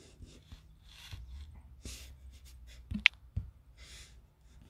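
Quiet room with a faint low hum, soft breaths and small handling noises near the microphone, and one sharp click about three seconds in.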